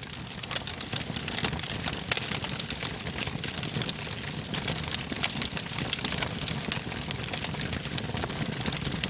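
Fire burning: a steady low roar with dense, irregular crackling.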